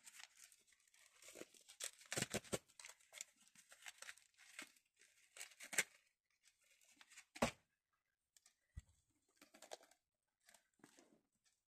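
Quiet rustling and scraping as a length of ribbon is handled and unwound to be measured, with a sharper tap about halfway through and a few faint clicks after.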